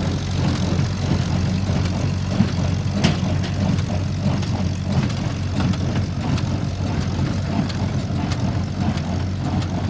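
International Harvester 434 tractor engine running steadily while pulling a Deutz-Fahr baler. Repeated clanks and clicks from the working baler are mixed in, with one sharp knock about three seconds in.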